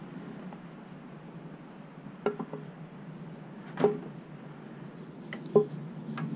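A few light clicks and knocks, spaced a second or more apart, as a small metal square is set against and moved along the edge of a rough-sawn poplar board. A faint steady hiss lies under them.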